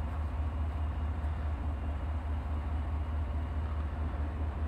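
A steady low rumble with a faint even hiss over it, unchanging throughout and with no distinct events.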